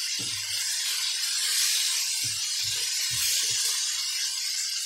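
Snapper fillets and prawns sizzling in butter and oil in a frying pan: a steady hiss, with a few faint taps of a utensil in the pan.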